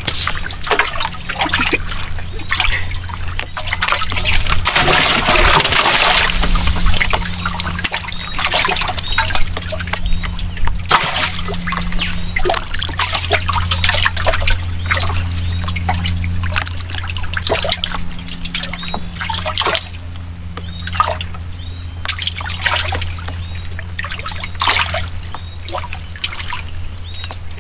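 Water splashing, trickling and dripping with many small sharp splashes, busiest about five seconds in, over a steady low hum.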